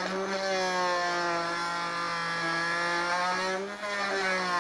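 Small handheld power tool motor running steadily with a whining pitch, working through one of the fasteners on a metal motorcycle seat pan; the pitch sags briefly under load near the end.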